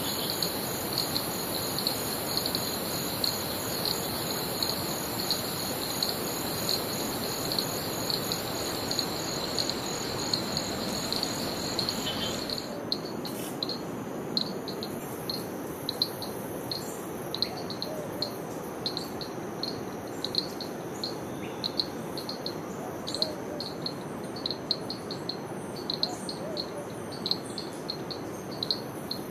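Insects chirping in a fast, regular rhythm over a steady rush of water. About halfway through the rush drops back and the chirps come more spaced out, about two a second.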